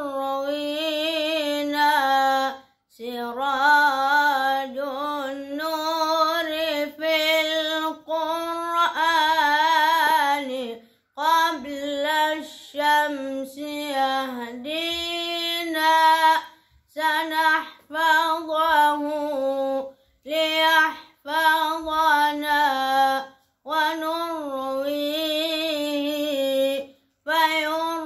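A boy's solo unaccompanied voice chanting an Islamic ibtihal in long melismatic phrases, the pitch wavering in ornamented turns, with brief pauses for breath between phrases.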